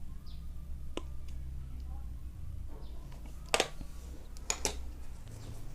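Sharp clicks and light handling noises from working an Ethernet cable's trimmed wires and an RJ45 connector by hand: a small click about a second in, then two sharper clicks, the second a close pair, over a steady low hum.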